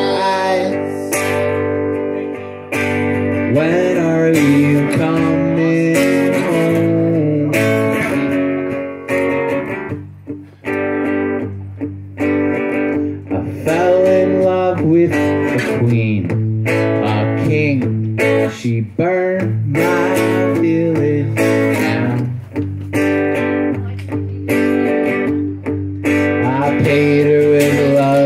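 Acoustic guitar strummed steadily while a man sings.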